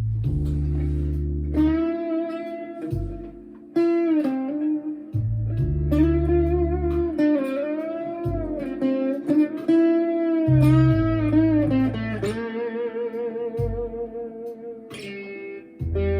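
Harley Benton ST-Acoustic guitar played through a Marshall MG15CFX amp with a Behringer Vintage Overdrive pedal: a bluesy lead line of sustained notes with string bends and vibrato, over deep low notes that come and go every few seconds.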